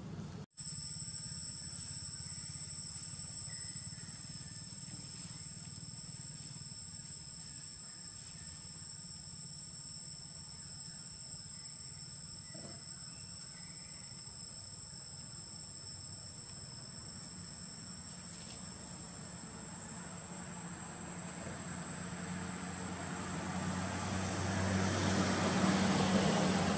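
Insects trilling in two steady high-pitched tones over a low steady hum; the lower-pitched trill stops about three quarters of the way through. Near the end a rushing noise swells and the hum grows louder.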